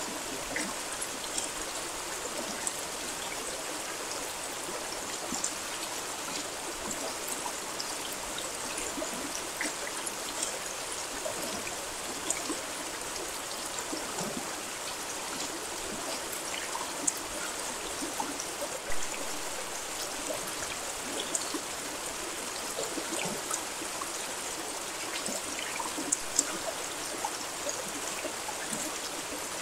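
Steady rain: an even hiss with many scattered, sharper ticks of single drops landing close by.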